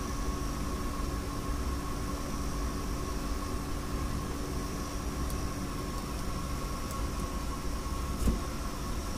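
Steady machine hum with a low rumble and a faint high whine, and a single short knock near the end.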